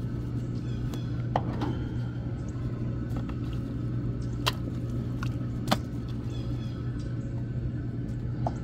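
A steady low mechanical hum, with a few sharp clicks about one and a half, four and a half and six seconds in.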